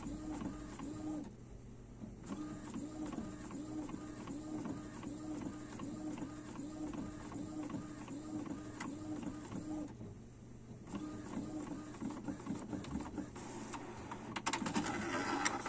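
Epson XP-255 inkjet printer printing, its print head carriage whirring back and forth in a steady rhythm of about two passes a second, with two brief pauses. A louder, noisier burst comes near the end.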